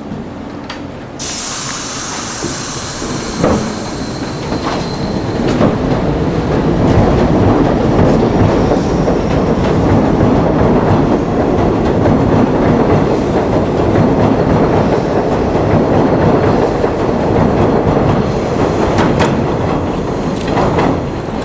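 Subway train running on elevated track: a sudden hiss about a second in, then running noise that builds over several seconds and holds steady, with occasional sharp clicks of wheels over rail joints.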